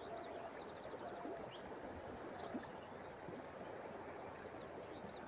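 Faint, steady rush of a shallow river flowing past rocks, with small high chirps now and then.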